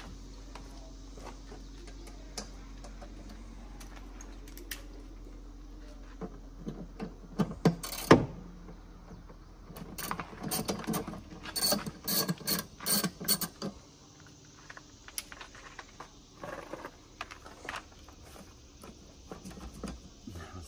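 Hand tools clinking and clicking on metal parts of a car. One sharp clank comes about eight seconds in, followed a couple of seconds later by a busy run of quick metallic clicks lasting several seconds, then scattered lighter clicks.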